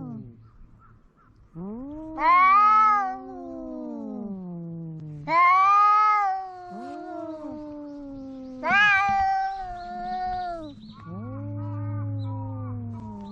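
Domestic cats caterwauling at each other in an aggressive standoff before a fight. Long, drawn-out low howls overlap, and three times a louder, higher yowl rises and then falls away.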